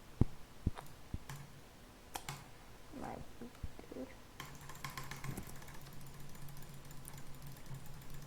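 Computer keys clicking: a few separate clicks and thumps at first, then fast, dense clicking from about four seconds in.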